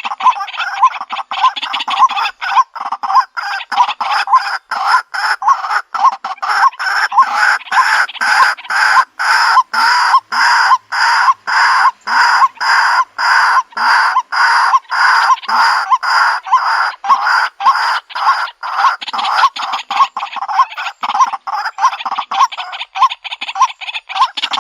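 White-breasted waterhen calling: a loud, harsh call note repeated rapidly and evenly, about three times a second, with no break.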